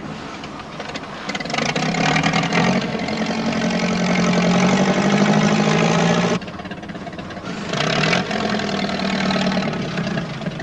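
Engine of a log lifter running while it moves cut log pieces, working hard in two loud spells: the first cuts off suddenly about six seconds in, and the second starts about a second later and is shorter.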